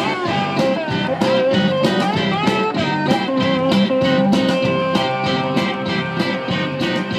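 Live rock band playing an instrumental passage: electric guitar over bass guitar and drums, with guitar notes bending in pitch and a steady drum beat.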